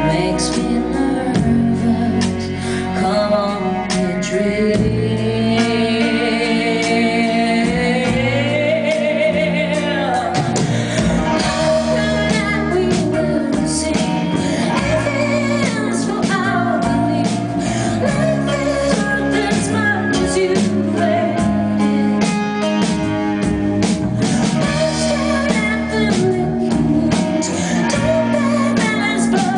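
Live rock band playing: a woman singing over electric guitars, keyboards and drums.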